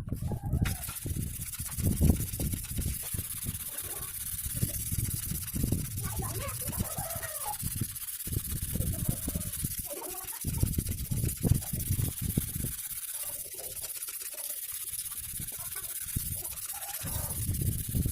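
A sickle blade being rubbed back and forth on a sharpening stone, in irregular scraping strokes that ease off for a while after the middle.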